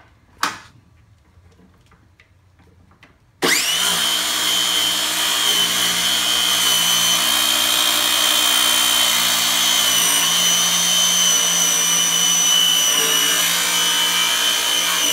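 A single sharp knock, then about three and a half seconds in a cordless circular saw starts abruptly and cuts steadily through walnut, a steady high blade whine over the noise of the cut as it trims the uneven edge of a glued-up slab square.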